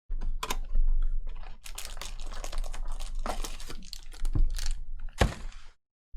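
Trading cards and foil pack wrappers being handled: a dense run of irregular sharp clicks and flicks with short bits of crinkling.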